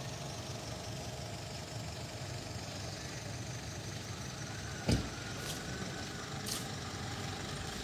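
Steady low rumble of an engine running, with a single knock about five seconds in and a couple of faint clicks after it.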